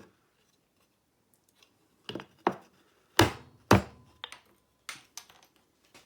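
Wooden knocks and taps of timber and hand tools being handled on a workbench: two light knocks about two seconds in, two louder ones around three and a half seconds, then a few lighter clicks.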